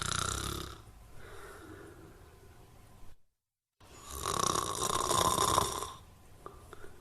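Loud snoring: one snore fades about a second in, then after a short gap of silence a second loud snore swells and dies away about a second before the end, with quieter breathing between them.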